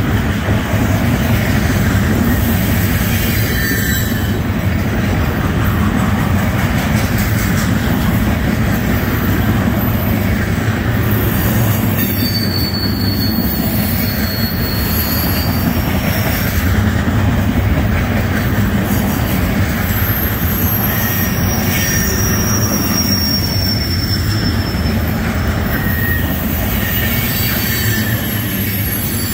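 Norfolk Southern trash train's container-loaded freight cars rolling steadily past, a loud continuous rumble of steel wheels on rail. Thin high-pitched wheel squeals come and go, around the middle and again later.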